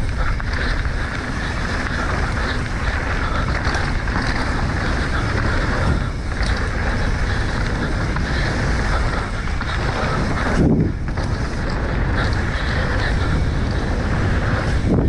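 Wind buffeting the camera microphone, mixed with the rumble of a mountain bike's tyres on a dirt trail, ridden at speed. A brief louder whoosh comes about ten and a half seconds in.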